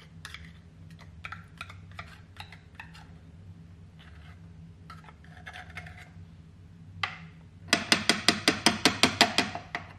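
Metal spoon scraping and tapping inside a tin of tomato puree, emptying the paste out. Near the end comes a quick run of about a dozen loud clinks, roughly six a second.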